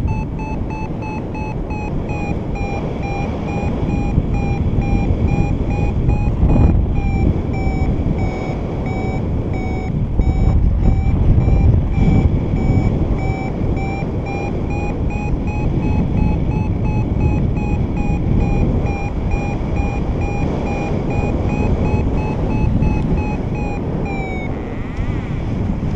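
Paragliding variometer beeping rapidly and steadily while the glider climbs in a thermal; the pitch sags slightly and rises again, then glides down and the beeping stops near the end as the lift fades. Wind rumble on the microphone underneath.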